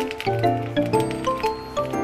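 Background music: a light melody of short, stepping notes over a steady low bass tone.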